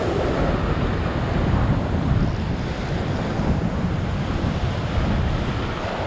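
Ocean surf washing and breaking against the rocks, with wind buffeting the microphone as a steady low rumble.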